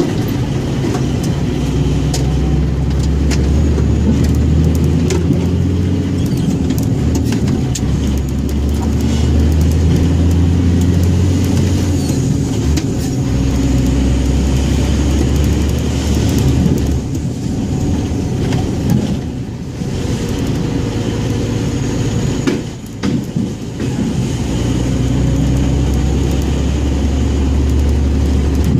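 Scania 114G 340 truck's 11-litre straight-six diesel running, its pitch stepping up and down a few times. There are two brief lulls past the middle.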